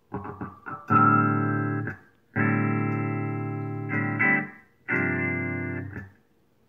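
Electric guitar chords played through a filter effects pedal with its resonance turned up: a few short choppy strums, then four held chords, each stopped short, with a bright ringing peak standing out high in the sound.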